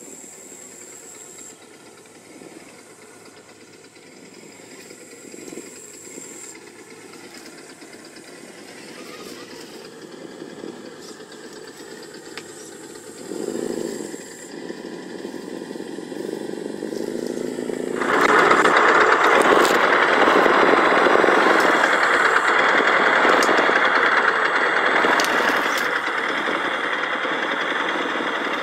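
SENSE Innovations ESS-One+ sound module on an Axial SCX10 crawler playing a simulated engine through its small speaker as the truck crawls. The sound turns much louder abruptly about two-thirds of the way in. A thin, high, steady whine runs through the first half.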